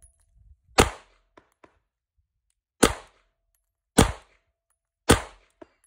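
Four pistol shots from an HK P30SK fitted with a GrayGuns short reset trigger, each a sharp crack with a brief ring-off. The first two are about two seconds apart, the last three about a second apart: follow-up shots after the double-action first shot.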